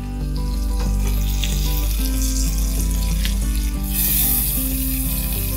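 Hot tempering oil with spices poured from a small iron tadka pan into a pot of gravy: a sizzling hiss that grows louder about four seconds in. Background music with steady low notes plays throughout.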